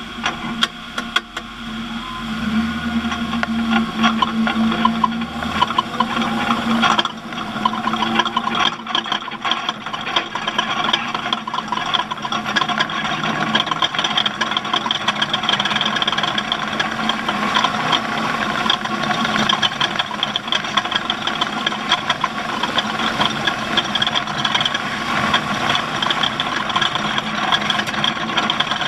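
Off-road race vehicle's engine running amid a constant clatter of rattles. A steady hum in the first seven seconds drops away after that.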